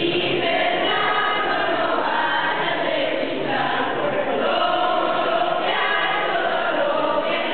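A group of teenage students singing a Spanish Christmas carol (villancico) together as a choir.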